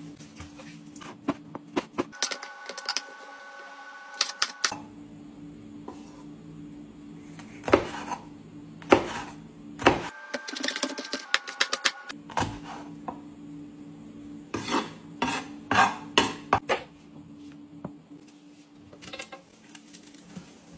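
Sharp knocks of a kitchen knife chopping tomatoes on a bamboo cutting board, coming in irregular clusters, over a steady low hum.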